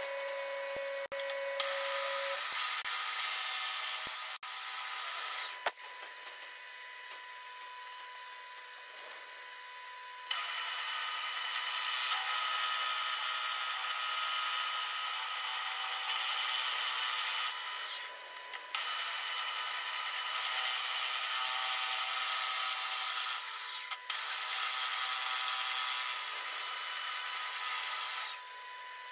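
Milling machine spindle turning an end mill that cuts the valve cut-out in an aluminium piston, a steady hissing cutting noise over the spindle's hum. The cut eases off for a few seconds after about six seconds, then runs on with two short breaks and stops near the end.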